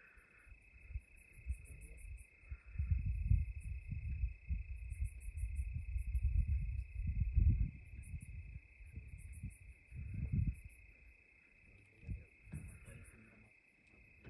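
Steady high-pitched drone of a night insect chorus, with rhythmic bursts of higher pulsed chirping over it. A low rumble, the loudest sound, swells and fades between about three and eight seconds in and again briefly near ten seconds.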